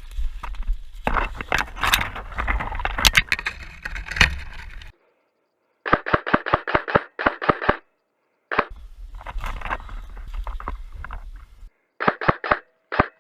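Airsoft gun fired in quick runs of sharp cracks, about five or six shots a second: one run about six seconds in and another near the end. Before and between the runs there is rustling movement with a few clicks.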